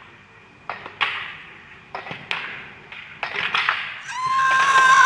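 Sharp plastic-and-metal knocks, mostly in pairs, as an inline slalom racer skates through the flexible slalom gates. Near the end a loud, high, sustained cry-like tone starts and slowly falls in pitch.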